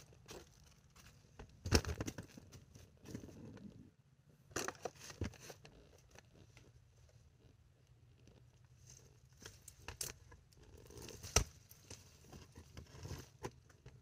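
Faint, intermittent rustling and crinkling from someone moving among leafy plants and handling things, with a few sharp clicks; the loudest click comes near the end.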